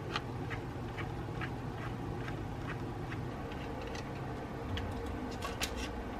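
Light, evenly spaced ticking, about two to three ticks a second, over a low steady hum, with a few sharper clicks near the end.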